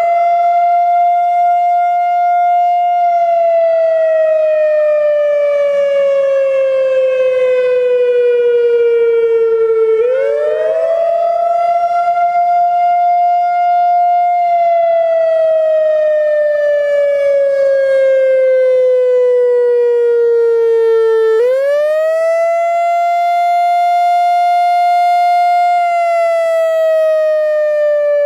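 Whelen WPS-3000 series electronic outdoor warning siren sounding a wail during a test. The pitch rises sharply, holds high for about four seconds, then slides slowly down, repeating in cycles about 11 seconds long.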